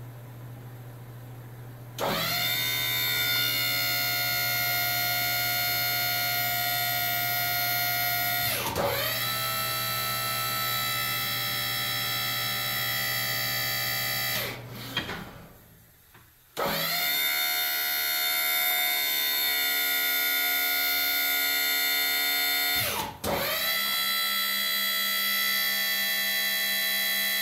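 A motor running with a steady whine. It spins up about two seconds in, dips briefly and recovers, winds down for a couple of seconds midway, then starts again and dips once more near the end.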